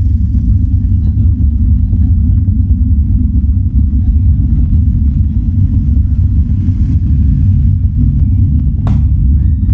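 Sixteen Cobre subwoofer boxes with 18-inch Betavo triple-magnet drivers playing a very loud, steady deep bass, with almost nothing above the low end. A brief click about nine seconds in.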